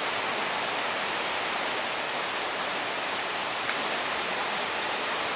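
Steady rush of river water flowing over rocks, an even hiss that does not change.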